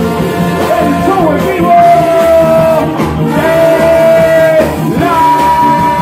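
Live cumbia band playing, with a male lead singer holding long notes over accordion and percussion.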